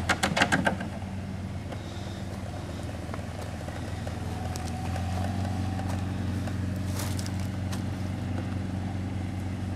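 4WD engine running steadily at low revs while crawling over an eroded, rutted track, a little louder about halfway through. A quick run of sharp clicks fades out in the first second.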